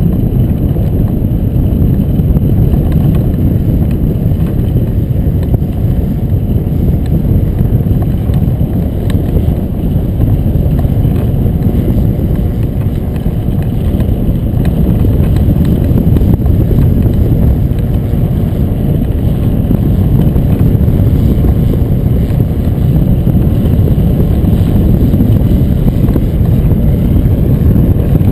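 Wind buffeting the microphone of a keel-mounted camera on a hang glider in flight: a loud, steady low rumble that dips slightly about halfway through and grows again toward the end.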